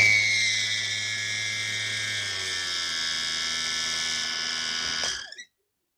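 Braun CombiMax 700 food processor switched on: its motor runs with a high, squeaking whine over a low hum, then is switched off about five seconds in. The squeak is a sign of parts running dry, which the repairer expects to cure by taking it apart and oiling it.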